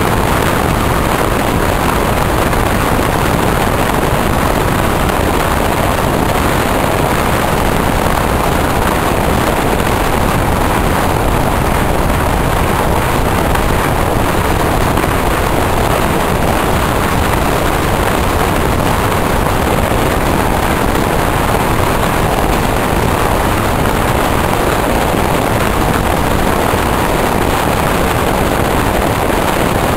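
Steady, loud rush of wind and running noise from a moving electric passenger train, heard at an open carriage window.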